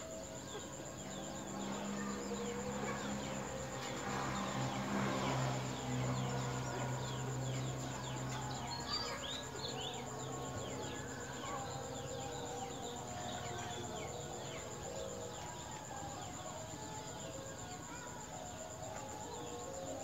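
Night insect chorus: a continuous high-pitched cricket trill with many short chirps from other insects, over a low steady hum that fades out about halfway through.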